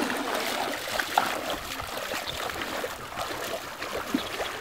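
Shallow, calm seawater lapping and trickling gently, a steady hiss of small water sounds with a couple of faint clicks.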